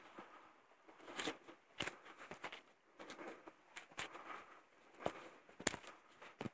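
Faint, uneven footsteps of someone walking across a wooden log footbridge, a series of short knocks and crunches spaced about half a second to a second apart.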